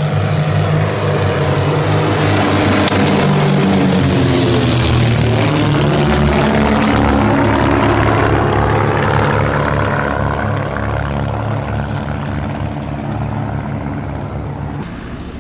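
SIAI-Marchetti SF.260 light aircraft's propeller engine running steadily as it makes a pass. The sound builds to its loudest a few seconds in, with a sweeping, phasing drone as it goes by, then fades toward the end.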